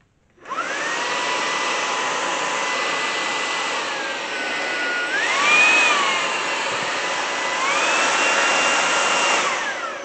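Ultenic FS1 cordless stick vacuum starting up and running with a steady rushing noise and a high motor whine. The whine steps down, briefly rises and falls, then steps up higher as the suction mode is changed, and winds down as the vacuum is switched off near the end.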